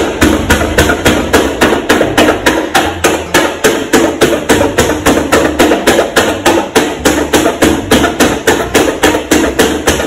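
Rapid, evenly spaced tapping, about five sharp knocks a second, like a hammer or a pen tip striking a hard surface.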